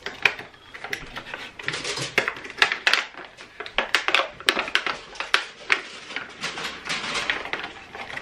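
Plastic and paper packaging being handled and torn open: a run of irregular sharp crackles and rustles with no steady rhythm.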